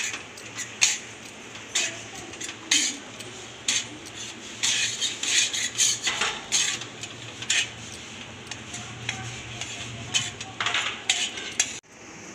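Spatula scraping and clinking against a steel kadhai while stirring crumbly ground moong dal being roasted in ghee. The scrapes come irregularly, a few each second.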